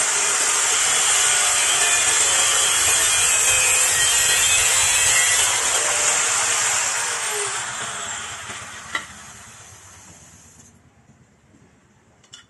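A handheld electric power tool grinding against a part with a loud, even hiss. About six seconds in it is switched off and spins down with a falling whine, followed by a single click.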